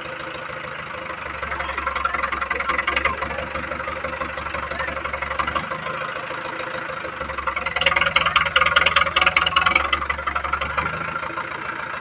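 Diesel tractor engine running, revved up twice with heavier rumble and louder clatter, the second time the loudest, settling back near the end.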